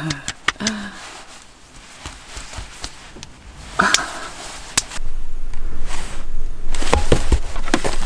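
Hands patting skincare into the face: a few soft slaps in the first second. Louder rustling and handling of bedding and a cable follow from about five seconds in.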